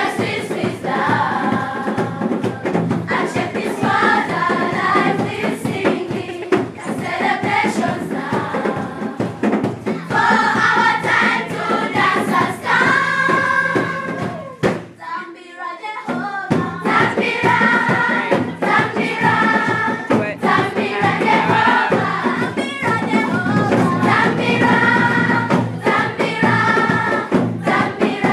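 A choir of schoolchildren singing together, with a steady beat under the voices. The singing breaks off briefly about halfway through, then starts again.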